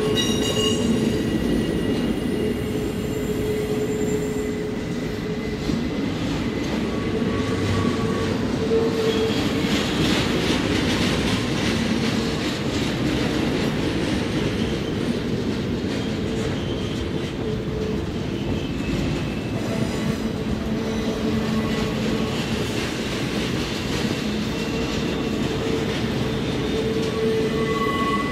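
Canadian National double-stack container freight train rolling past on the curve of a track cloverleaf, a steady rumble of wheels on rail with high wheel squeals coming and going.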